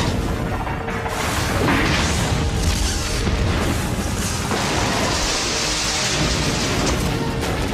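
Action-film soundtrack: several explosion booms from street pyrotechnics, mixed over action-score music.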